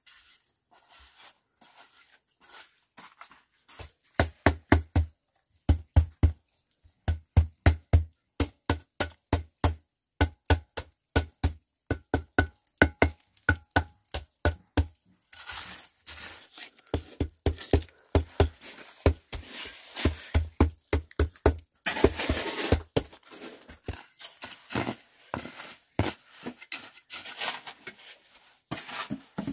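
Wooden stick tamping wet concrete among a rebar mesh: dull thuds in quick succession, about three a second, beginning a few seconds in. Past the halfway point the strokes turn wetter and noisier as the concrete is packed and worked flat.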